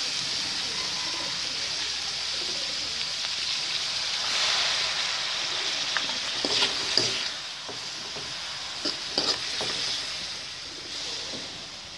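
Water spinach sizzling as it is stir-fried in a metal wok, a metal spoon scraping and clicking against the pan. The sizzle grows louder a few seconds in, there are several sharp spoon clicks around the middle, and it quietens after about seven seconds.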